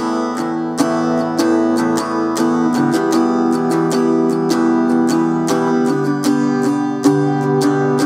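Three-quarter-size Yamaha JR1 acoustic guitar being strummed, its chords ringing on between regular strokes.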